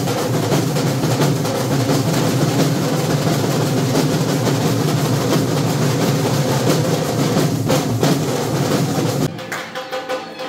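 Dholak drumming: a loud, fast, continuous hand beat on the barrel drum, which stops abruptly about nine seconds in.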